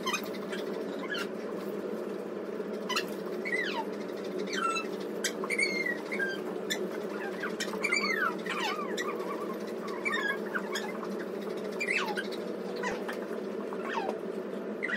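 A dog whining: short high whimpers, each falling in pitch, repeated irregularly over a steady low hum.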